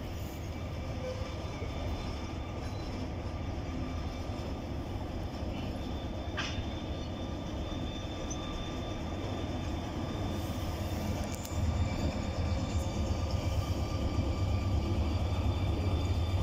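A passenger train rolling slowly past with a steady low rumble and a faint steady whine, then the low rumble of the locomotive coupled to it grows louder about eleven and a half seconds in as it draws near.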